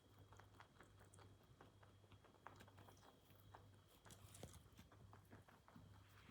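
Rabbit drinking water: faint, quick, irregular little clicks and smacks of its mouth and tongue.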